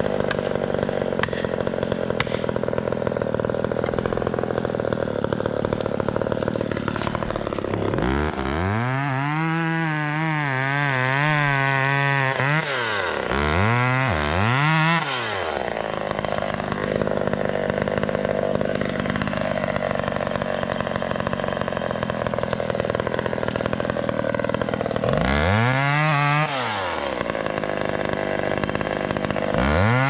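McCulloch Pro Mac 570 two-stroke chainsaw cutting into the base of a tree. The engine runs steadily in the wood and several times climbs sharply to a high whine at full throttle before dropping back.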